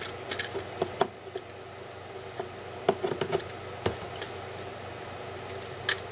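Scattered clicks and light knocks of hard plastic and metal parts of a cordless multi-tool kit being handled and fitted together, over a faint steady hum.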